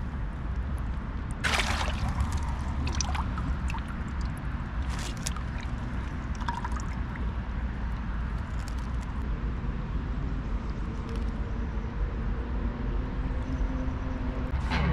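Water splashing and sloshing around a gloved hand holding a small wels catfish by the jaw at the surface as it is released, with a louder splash about a second and a half in. A steady low rumble runs underneath.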